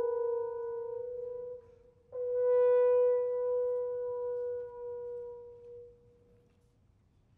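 Brass trio of French horns and trumpet sustaining one pitch: a held note fades out about a second and a half in, then after a brief pause a second long note on the same pitch comes in, swells and slowly dies away to near silence.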